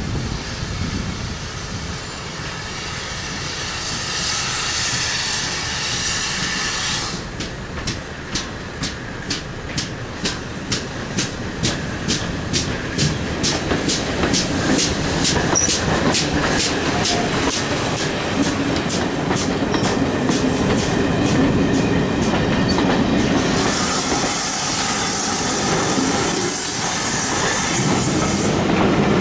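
Ex-GWR 57xx pannier tank steam locomotive working a passenger train past: a stretch of steam hiss, then sharp, even exhaust beats about three a second as the engine goes by. After that comes the rumble of the coaches rolling past, with a high hiss near the end.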